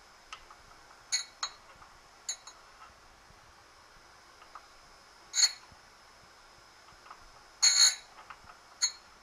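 Surface grinder wheel running steadily while the end edges of a metal workpiece, held in a chamfering block, are touched to it in about six short bursts of grinding. The longest contact comes near the end.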